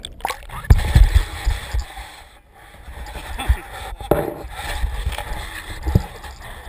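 Camera in its waterproof housing being lifted out of the sea and handled: water sloshing, with knocks and dull thumps against the housing, the loudest about a second in.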